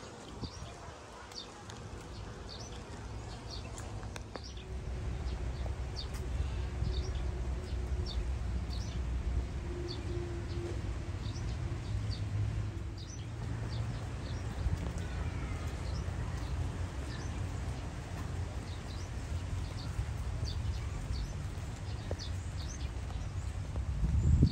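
Outdoor garden ambience: a bird repeats short high chirps about once a second, over a steady low rumble.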